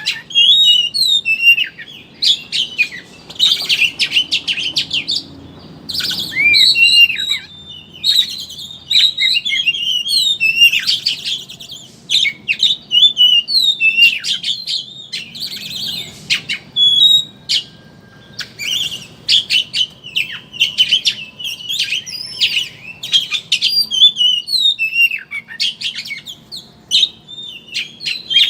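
Oriental magpie-robin (kacer) singing a fast chattering twitter, with rapid varied high notes and short whistles in bursts of a second or more, broken by brief pauses.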